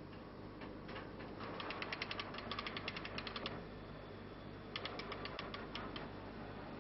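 A ratchet mechanism clicking rapidly and evenly in two runs of a second or two each, over a low steady hum.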